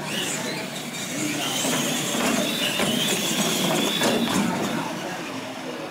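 Radio-controlled monster trucks racing on a concrete floor: a high electric-motor whine that rises and glides in pitch over the noise of the tyres, with a few knocks as they land off the ramps.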